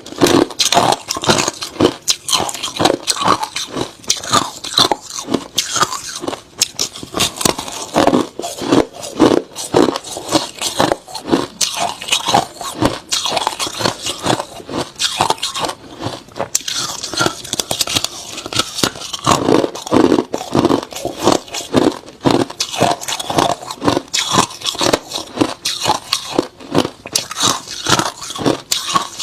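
Close-up crunching and chewing of hard crushed ice: a dense, continuous run of sharp, crackling bites and crunches.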